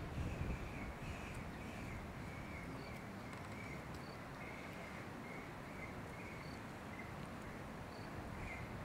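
Outdoor natural ambience: a steady hiss under a string of short, high chirps repeating about once or twice a second, from a bird or insect.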